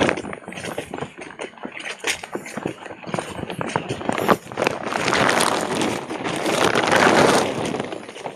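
Quick, irregular footsteps along a concrete ditch edge, with the handheld phone rubbing and jostling. From about five seconds in, a louder rushing noise covers them for a couple of seconds and then eases.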